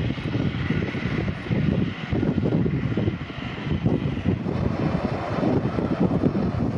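Strong wind gusting and buffeting the microphone, over a steady jet-engine rush from an Airbus A320 taxiing at low thrust.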